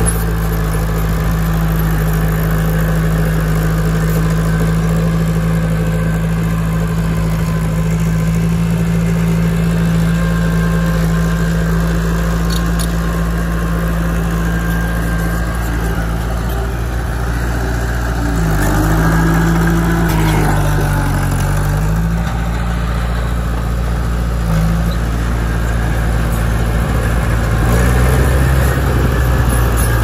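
Diesel engine of a heavy road-building machine running steadily. About two-thirds of the way through, its pitch drops and then climbs back up.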